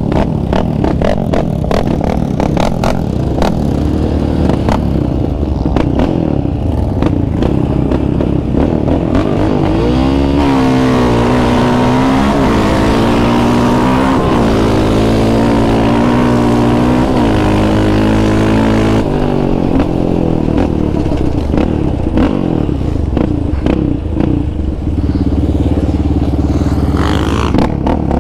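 Yamaha Raptor 700R's single-cylinder four-stroke engine through an aftermarket Monster exhaust, running rough and low at first. From about ten seconds in it pulls hard for some nine seconds, its pitch climbing and dropping back several times as it runs through the gears, then it settles to lower, uneven running.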